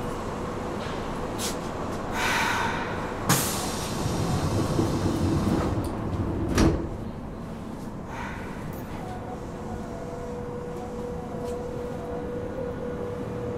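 Inside a Nagoya Municipal Subway 3000 series car at a station stop: a hiss, then two sharp thumps a few seconds apart as the sliding doors close. After that a steady electric hum from the chopper control sets in and grows stronger as the train begins to move.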